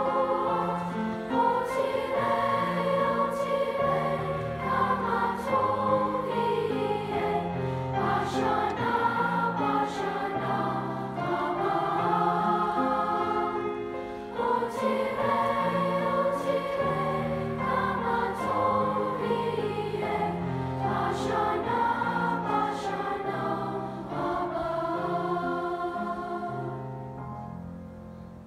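A large choir of sixth-grade children singing a song together, ending on a final chord that fades away over the last few seconds.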